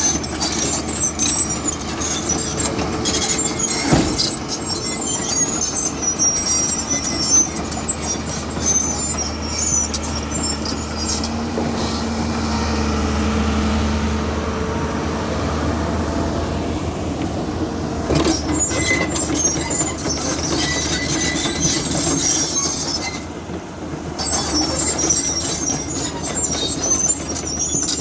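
Hyundai hydraulic excavator's diesel engine running with a steady low hum, over a string of short, high metallic squeaks and clicks. The squeaks drop out for a steadier stretch around the middle, then return.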